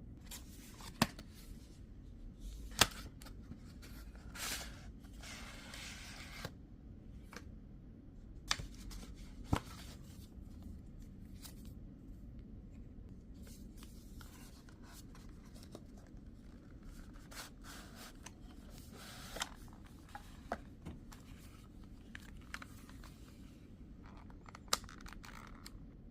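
Phone packaging being unwrapped by hand: stretches of tearing and rustling, the loudest about four to six and a half seconds in, among scattered sharp clicks and taps as the box and its contents are handled.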